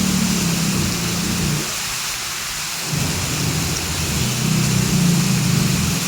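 Heavy rain falling steadily, with a deep low rumble underneath that drops away a little under two seconds in and swells back about a second later.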